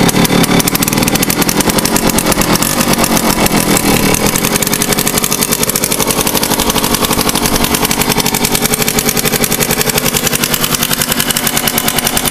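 Yamaha Tri-Zinger's small two-stroke single-cylinder engine idling steadily with a rapid, even beat, still a little cold after a cold start.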